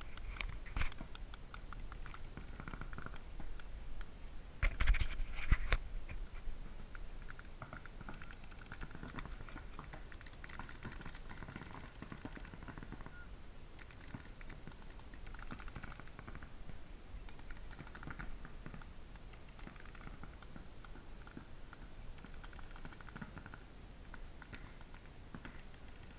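Paintball markers firing across the field, heard as faint, rapid strings of small pops, with a louder flurry about five seconds in.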